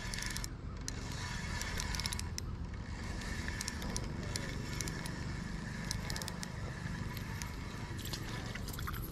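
Spinning reel being cranked to reel in a hooked crappie: a steady whir from the reel with many light clicks and ticks.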